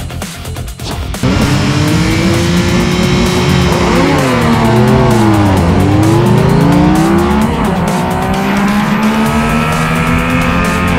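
Two Yamaha inline-three motorcycle engines, an MT-09 and a Tracer 9 GT, at full throttle from onboard, heard together. The revs climb, dip at each quick upshift and climb again, and the two engines' pitches cross each other. They cut in loudly about a second in, over background music with a beat.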